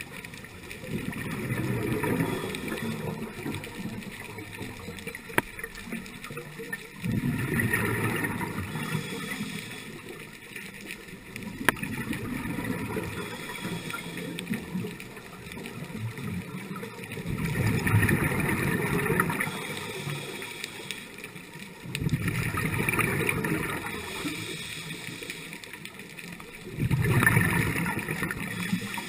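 Scuba regulator exhaust: the diver's exhaled bubbles gurgle out in bursts about every five seconds, with a quieter wash of breathing and water between them, heard muffled through the camera's underwater housing.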